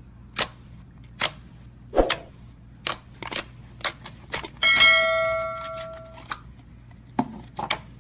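Clear slime squeezed and pressed by hand, making sharp pops and clicks as air pockets burst, about one or two a second. About halfway through, a bell-like chime rings out and fades over a second and a half.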